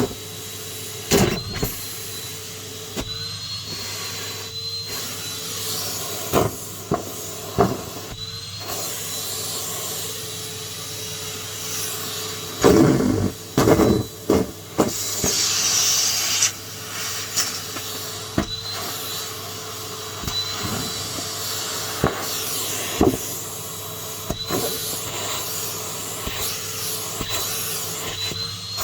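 Numatic James cylinder vacuum cleaner running steadily with a constant motor hum, with sharp clicks and rattles every few seconds and a louder stretch of rattling about halfway through.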